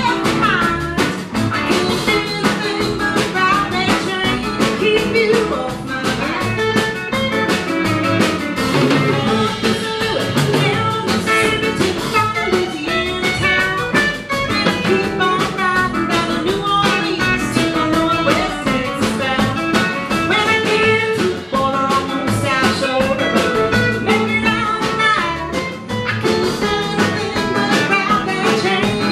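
Small band playing live: a woman singing lead while strumming guitar, backed by upright bass and a second guitar.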